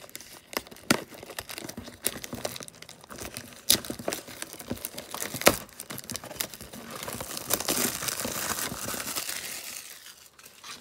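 Plastic shrink-wrap on a cardboard trading-card box crinkling and tearing as it is handled and pulled open: scattered sharp crackles at first, then a longer continuous rustle about seven seconds in.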